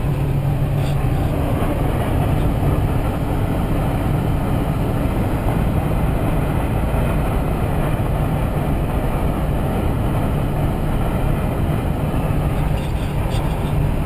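Cabin noise of a 2005 GMC Sierra 2500HD with the Duramax turbo-diesel at about 75 mph: a steady wind rush coming in around the driver's A-pillar over a steady low drone of engine and road. The owner puts the wind noise down to sagging driver's door pins and a loose rear extended-cab window.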